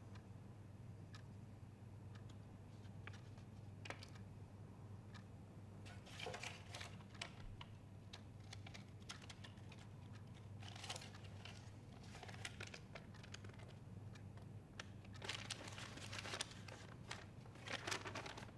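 Paper rustling and crinkling as sheets are handled, in bursts about six seconds in, around eleven to twelve seconds, and more strongly near the end. Underneath are faint regular ticks about once a second and a low steady hum.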